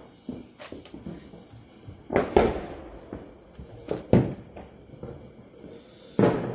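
Thin wooden rolling pin working a sheet of cashew dough on a plastic-covered board: soft rolling and rustling of the plastic, with louder knocks and crinkles around two, four and six seconds in. Crickets trill steadily in the background.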